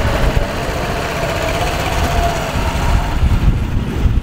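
Small single-cylinder petrol engine of a homemade kart running as it drives along, over a steady low rumble, with a faint engine tone rising slightly in pitch before fading about three seconds in.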